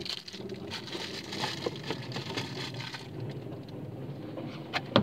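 Continuous crackly rustling and handling noise close to the microphone as a person shifts in a car seat and reaches back for the seat belt, with one sharp click near the end.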